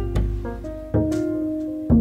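Instrumental background music: sustained notes and chords struck about once a second over a low bass line.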